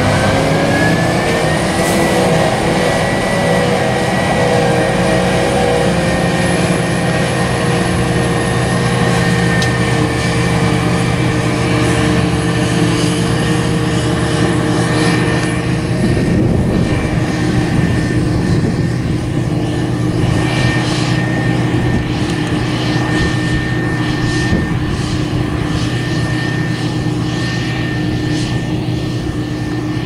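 New Holland FR self-propelled forage harvester at work, its engine and chopper rising in pitch as they come up to speed in the first couple of seconds, then running with a steady high whine. The tractor pulling the trailer alongside runs with it.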